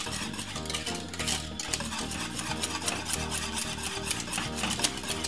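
Wire whisk stirring thickening cornmeal porridge in an aluminium saucepan, the wires scraping and clicking against the pot in quick repeated strokes, with background music underneath.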